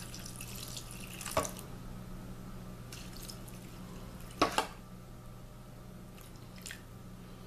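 Water poured in a thin stream from a plastic measuring cup into a metal loaf pan of dry ramen noodles, splashing loudest in the first second and a half, then pattering more softly as the pan fills. Two sharp clicks, one early and one about halfway through, and a steady low hum underneath.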